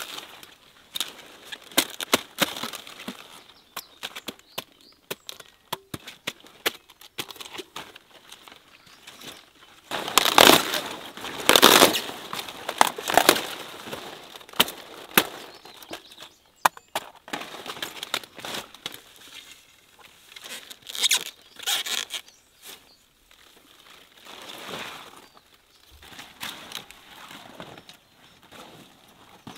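Cabbage heads being cut from their stalks with a knife: crisp crunching and snapping of the stems and leaves among rustling leaves. The loudest bouts of crunching come about ten to thirteen seconds in and again a little after twenty seconds.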